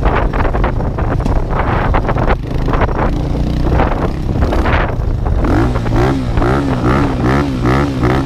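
A motor vehicle running under way, a steady low engine hum under rough, buffeting noise. In the last few seconds a rapidly warbling, wavering pitched sound joins in.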